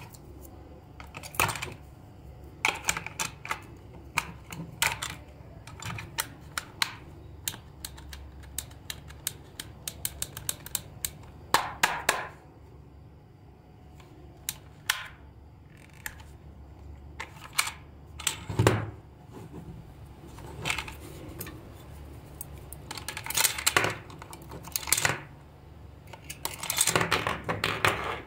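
Hard plastic toy casing being handled: irregular sharp clicks and clatters as the case is turned over and its snap-on battery cover is worked open.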